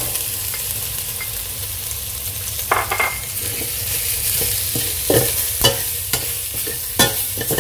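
Pork pieces and yellow herb paste frying in oil in a stainless steel pot, sizzling steadily, while a metal ladle stirs and knocks against the pot several times from about three seconds in.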